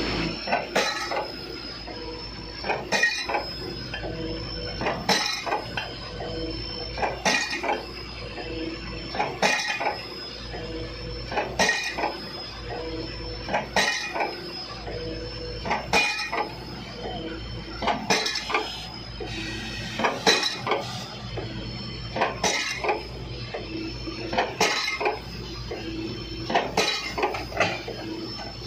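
Metal hammer strikes ringing on steel against a precast concrete pile, usually one or two blows about every two seconds, with a clinking ring after each. An excavator engine runs steadily underneath.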